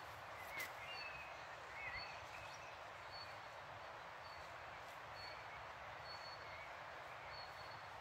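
Steady rushing of a river under birdsong. One bird repeats a short high note about once a second, and another sings brief warbling phrases in the first two seconds. There is a sharp click a little after the start.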